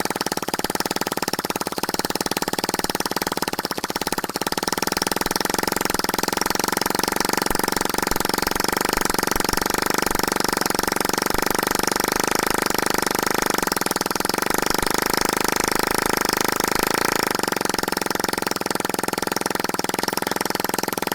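Chinese 120cc engine running steadily after its repair, with a fast, even firing rhythm.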